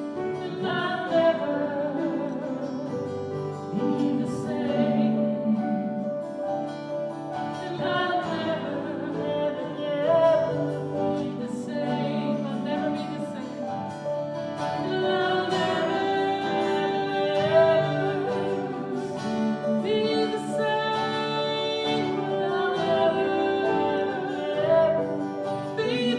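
Worship song: a singing voice over guitar and other instruments, with long held notes.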